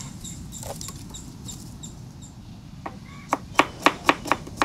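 Chef's knife chopping a red onion on a wooden cutting board: a run of sharp knocks, about three or four a second, starting about three seconds in.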